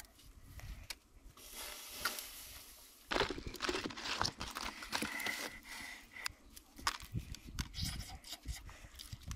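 Rustling and scraping of banana leaves with irregular taps and clicks, as cooked eggs are tipped out of a charred bamboo tube onto the leaves and one egg's shell is cracked and peeled. The sound gets louder and busier about three seconds in.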